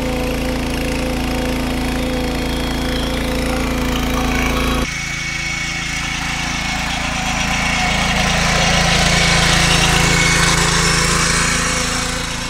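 A power tiller's 7.5 HP petrol engine running steadily while it tills soil. About five seconds in the sound cuts to the tiller towing a loaded trolley, its engine growing louder as it approaches, loudest about ten seconds in, then fading.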